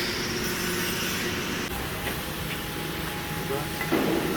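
A machine runs steadily in the background, a constant droning hum with a high hiss that fades out a couple of seconds in. A short burst of voice comes near the end.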